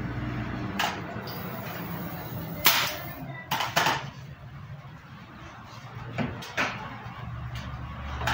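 A nail gun firing about six times at uneven intervals, driving nails to fasten wooden drawer pulls to a board. Each shot is a sharp crack, some with a short hiss. A steady low hum runs underneath.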